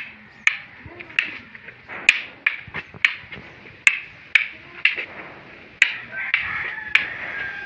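Arnis sticks clacking together in a slow double-stick sinawali drill: about a dozen sharp wooden clacks, roughly one every half second to second.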